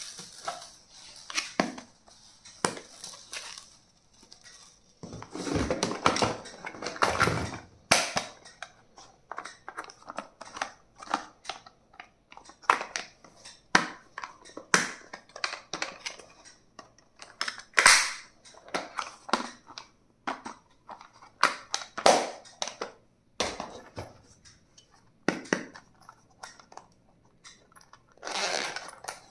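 Plastic stationery items and their packaging being handled: an irregular run of sharp clicks, snaps and taps, with a longer stretch of rustling and crinkling about five seconds in.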